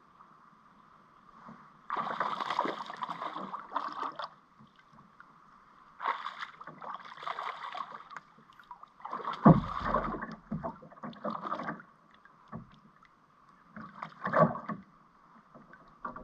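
A hooked fish splashing and thrashing at the water's surface beside a kayak while it is reeled in, in four separate bursts, with a hard thump about halfway through that is the loudest sound.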